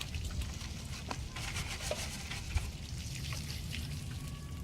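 Water trickling and splashing as a car is hand-washed with a hose.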